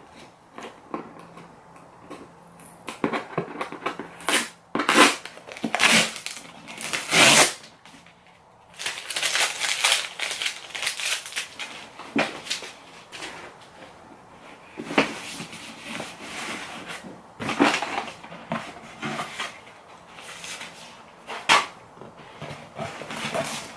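Cardboard shipping box being opened and its packaging handled: irregular bursts of crinkling, rustling and scraping, with the loudest bursts near the middle.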